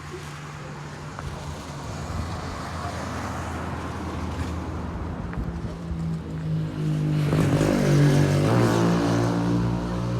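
A motor vehicle approaching and passing close by. A rushing noise builds over several seconds, then an engine hum takes over, shifting in pitch and loudest about eight seconds in.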